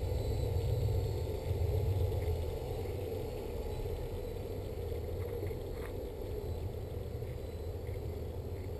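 Multirotor drone's electric motors and propellers humming steadily in a hover, growing gradually fainter.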